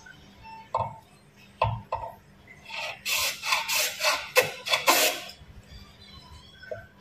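A few light knocks, then a quick run of rough scraping strokes, about four a second, on PVC pipe, which then stops.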